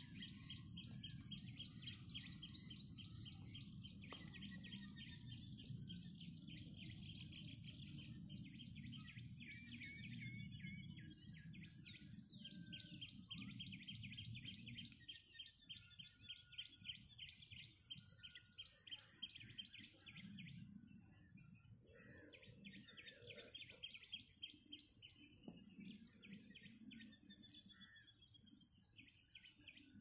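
Faint outdoor ambience of small birds chirping in fast trilling runs of notes, over a steady high insect buzz, with a low rumble through the first half that thins out about halfway.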